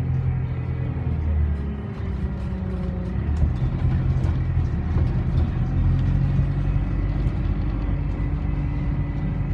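Alexander Dennis Enviro400 double-decker bus heard from inside the passenger saloon: the engine and driveline run with a steady low hum as it drives, with light rattles from the body and fittings. The engine note drops off about two seconds in, then picks up again and pulls harder from about six seconds.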